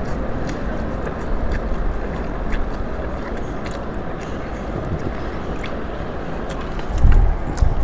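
Close-miked eating of a bowl of beef noodles: small mouth and chewing clicks over a steady rumbling background noise, with a heavier low thump about seven seconds in.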